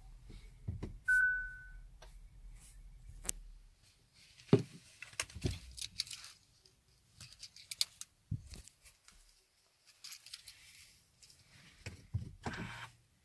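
Keys jangling and scattered clicks, knocks and rustles of hands working a car key and controls in a small enclosed space, with one short high electronic beep about a second in.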